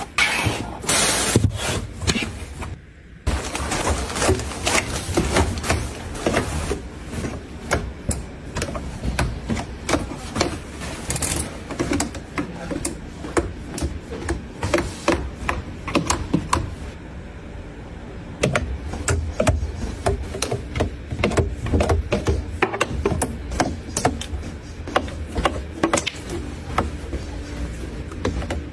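Clothes on plastic hangers being handled on a closet rail: quick, irregular clicks and knocks as the hangers tap each other and the rail, over fabric rustling.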